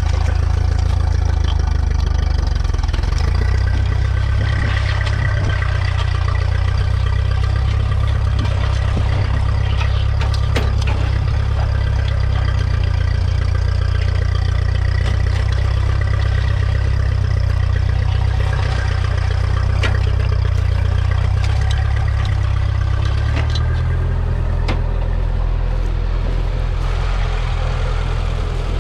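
Ferguson TED20's 2.1-litre four-cylinder petrol/TVO engine running steadily under load, pulling a two-furrow mounted plough through the soil. A few sharp clicks sound over the engine.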